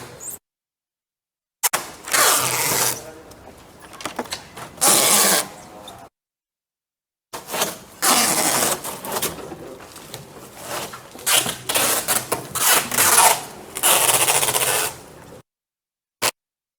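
Packing tape being pulled off the roll: loud, crackling rips that come in long stretches and are broken by sudden dead silences.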